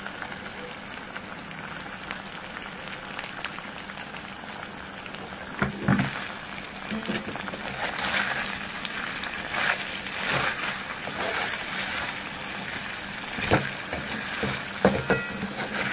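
Chicken pieces frying in a steel kadai, a steady sizzling hiss. From about six seconds in, a steel ladle scrapes and knocks against the pan several times as the chicken is stirred.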